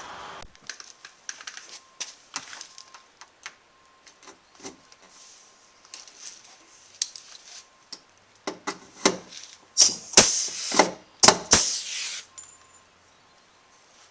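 Scattered light clicks and knocks, then a run of louder scraping or rustling noises about ten seconds in, lasting a couple of seconds.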